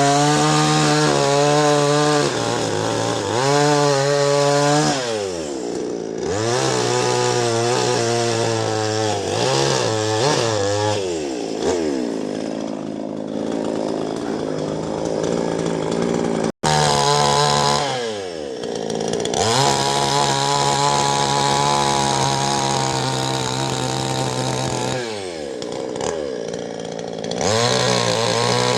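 Chainsaw running and cutting wood, its engine note rising and sagging again and again as it is revved and loaded in the cut. It drops out for a moment about halfway through.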